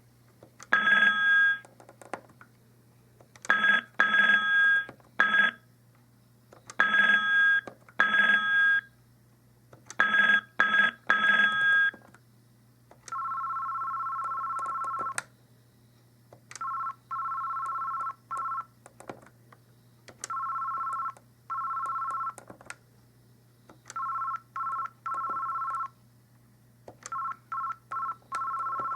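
Cisco SPA508G IP phone ringing through its speaker, switching between two ringtones. First comes a bright ring of short tone clusters repeating about every three seconds. About thirteen seconds in, a different two-note ring takes over in bursts of about two seconds. A faint low hum runs underneath.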